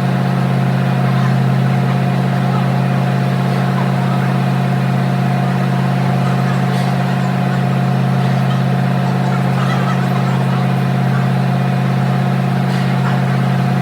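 A motor vehicle engine idling steadily, a constant low hum with a steady higher tone over it.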